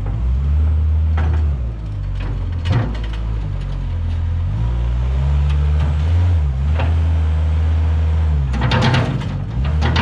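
Diesel engine of a compact wheel loader working under load, its pitch rising and falling as the loader pushes its bucket into a pile of loose material. Bursts of clattering come once about three seconds in and again near the end.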